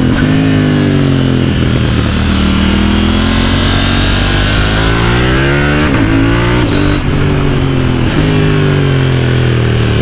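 KTM Duke 790's parallel-twin engine running under load through an aftermarket Austin Racing exhaust, its note falling and rising as the bike is ridden hard through bends. The note breaks sharply a few times in the second half, as gears are changed on the electronic quickshifter.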